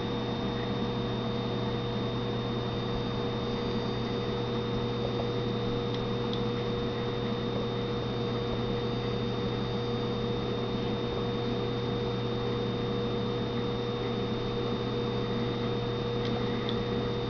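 Steady electrical hum with a constant hiss beneath it, unchanging throughout, with a couple of faint ticks.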